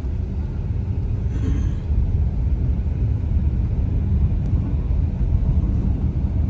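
Steady low rumble of a car.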